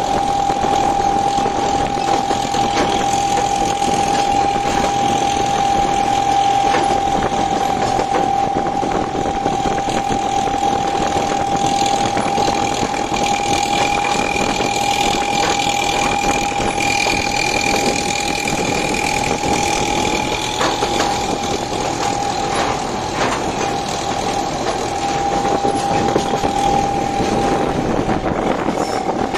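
Narrow-gauge train running, heard as a steady mechanical din with a high, constant whine all the way through. A second, higher whine joins for several seconds around the middle.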